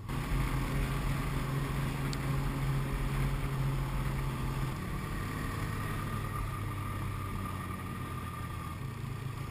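Snowmobile engine running steadily under way, a low hum with a noisy rush over it; the engine note drops a little about halfway through.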